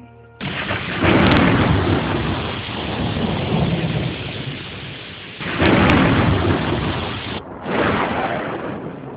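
Thunderstorm: heavy rain hiss that starts suddenly about half a second in, with three swells of thunder rumble, about a second in, near the middle and near the end.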